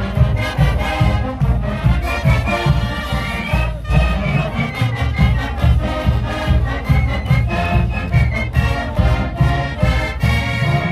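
A college marching band playing, brass over a steady drum beat.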